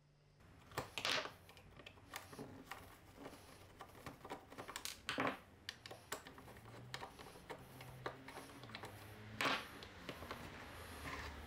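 Metal parts of a vintage measuring wheel being handled and set down on a wooden workbench: the wheel, its folding arms and its small mechanical counter. Many light clicks and knocks, with three louder clatters about a second in, about halfway through and near the end.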